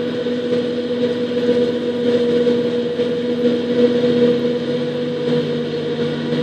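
Self-propelled forage harvester chopping maize for silage: a steady mechanical drone with a constant hum, and a lower engine note joining about four and a half seconds in.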